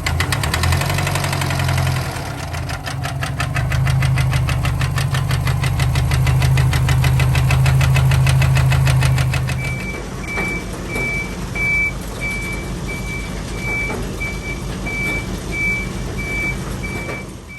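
Subaru Impreza STI Spec C's turbocharged flat-four engine running with a rapid clatter (カタカタ) in time with engine speed, a knocking that the owner takes as a sign the engine may be due for an overhaul. About ten seconds in the engine sound changes and a reversing beeper starts, beeping evenly about every two-thirds of a second.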